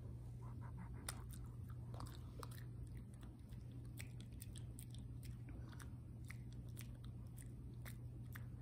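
Shih Tzu chewing a Hill's Prescription Diet soft dog treat: an irregular run of quick wet clicks and smacks of the jaws.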